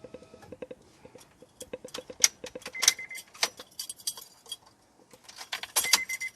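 Car keys jangling and clicking in the ignition of a Honda Accord as the key is cycled to check the SRS airbag warning light. There is a run of quick ticks early on and two short, high steady tones, one about three seconds in and one near the end.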